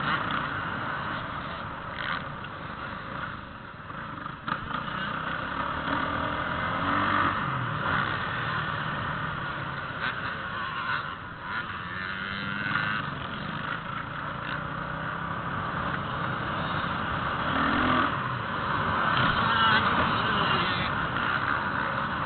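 Motocross bikes' engines revving on a dirt track, the sound rising and falling as the bikes ride past, loudest a few seconds before the end.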